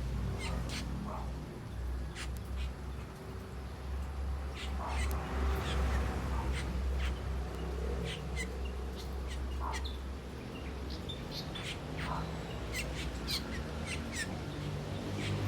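Asian glossy starlings calling with many short, sharp chirps at irregular intervals, over a steady low rumble.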